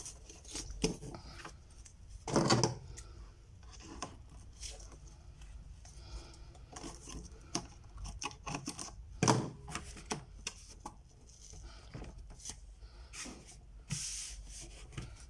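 Mat board and artwork paper being handled and slid on a desktop: scattered rubbing and rustling, with two short louder knocks, one about two and a half seconds in and one near the middle.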